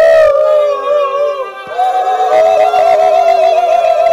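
Several voices wail together in long, held wordless notes, a ritual chant. About halfway through they break briefly, then resume with a fast wavering vibrato.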